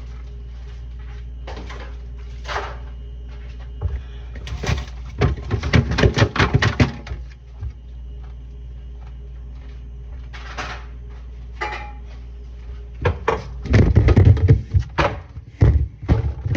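Things being handled in an open refrigerator: bursts of clatter and knocks, mostly a few seconds in and again near the end, over a steady low hum.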